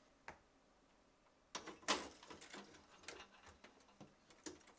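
Needle-nose pliers clicking and scraping on the wire clips that hold a refrigerator's defrost heater to the evaporator coil as the clips are bent free. The clicks are light and come in a cluster between about a second and a half and three seconds in.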